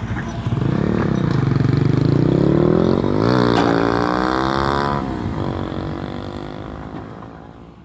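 Volvo EW145B wheeled excavator's diesel engine running under hydraulic load while digging, its pitch dipping and then rising as the boom and bucket move. About three and a half seconds in, a short clatter of soil and stones as the bucket dumps. The sound fades away near the end.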